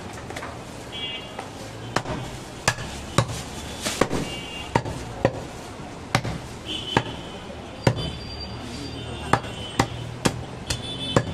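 Large chopping knife striking goat meat and rib bone on a wooden log chopping block: sharp, irregular chops at about two a second.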